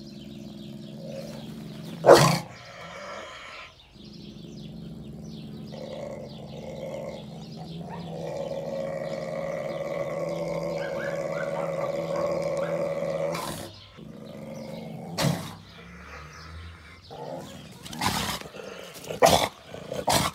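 Wolf growling, a low steady snarl held for several seconds at a time. There is a loud sharp knock about two seconds in and a few short sharp sounds near the end.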